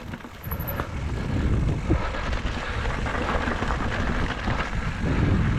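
Mountain bike rolling over a rough, rocky trail section: tyres rumbling and crunching over rock with scattered clicks and rattles from the bike, a steady low rumble that swells after about a second.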